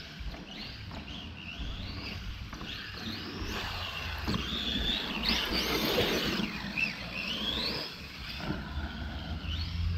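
Arrma Outcast 8S RC truck's 800kV brushless electric motor whining, its pitch rising and falling again and again as the throttle is worked, loudest about halfway through.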